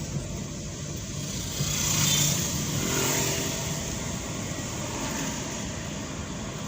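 Vehicle engine running in slow road traffic, with the steady hum of surrounding cars.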